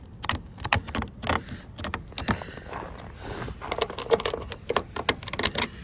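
A metal spoon chipping and scraping at ice on an iced-shut car door: an irregular run of sharp clicks and taps, with a short scrape about three seconds in.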